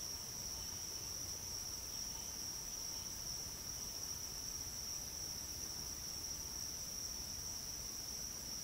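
Insects trilling in a steady, unbroken high-pitched chorus, over a faint low background hum.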